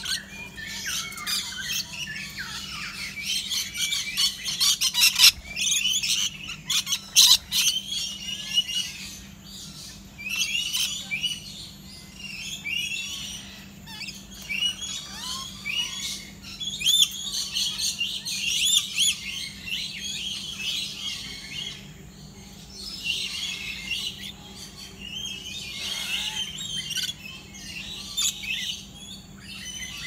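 A flock of rainbow lorikeets and lories screeching and chattering at their feeding bowls: a dense, unbroken run of shrill squawks and chirps, with a cluster of sharp clicks about six to eight seconds in. A faint steady low hum lies underneath.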